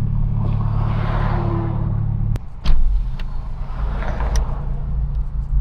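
2022 Honda Civic Si's turbocharged engine heard from inside the cabin while driving, with a steady drone and swells of rushing turbo sound. About two and a half seconds in there is a sharp click and a brief dip before the engine pulls on.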